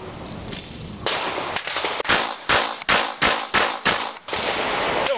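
A Glock 22 .40 S&W pistol in a CAA Micro Roni carbine stabilizer firing a string of shots: two single shots, then six in quick succession about a third of a second apart, with a metallic ring after several of them.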